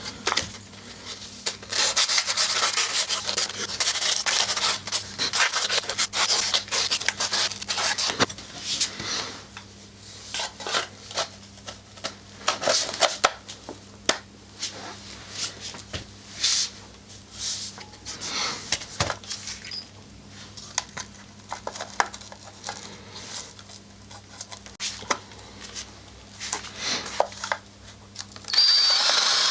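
P180 sandpaper rubbed by hand over sharp metal edges on the exhaust parts, in uneven rasping strokes that are denser in the first nine seconds. A louder sound with a high whine comes in the last second.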